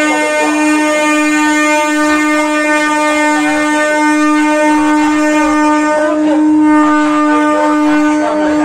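A loud horn sounding one steady, unwavering note, held without a break for the whole stretch, with voices faintly beneath it.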